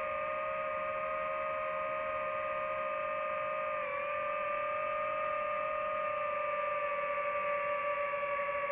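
DJI FPV drone's motors and propellers running in flight, a steady pitched tone whose pitch dips briefly about four seconds in.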